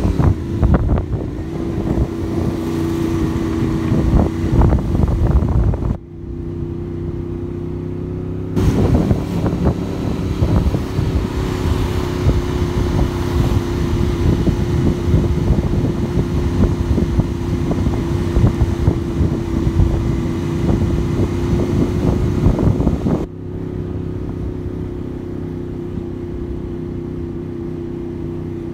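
Motorcycle engine running steadily while riding, with wind rushing over the microphone. The wind noise cuts out abruptly twice, about six seconds in for a couple of seconds and again near the end, leaving the engine hum on its own.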